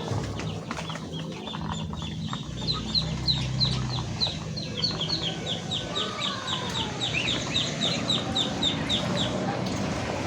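A small songbird calling a long, fast series of short, sharp chirps, about four a second, starting about a second in and stopping near the end.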